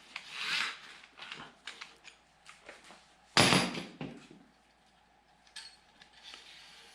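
Metal clinks and knocks of tools being handled at a bare engine block, with one loud, short rushing burst about three and a half seconds in.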